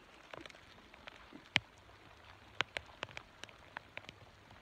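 Rain falling, single drops striking close to the microphone as scattered, irregular sharp ticks over a faint steady hiss.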